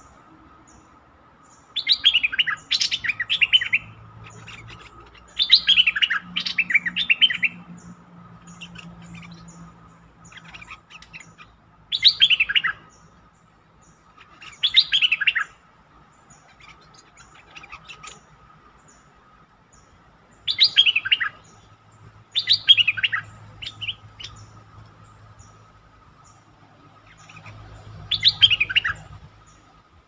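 Bulbul song: seven short phrases a few seconds apart, each a quick run of bright notes falling in pitch, from birds squaring off at a caged decoy.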